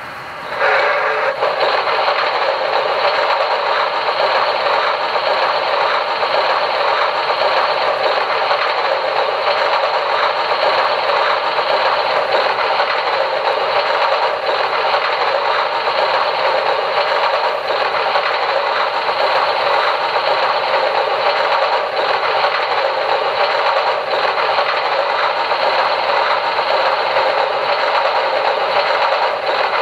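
QSI Maxx Traxx steam-locomotive sound effect of coal being loaded into the engine, played through the panel's speaker: a steady rattling rush of pouring coal that starts about half a second in.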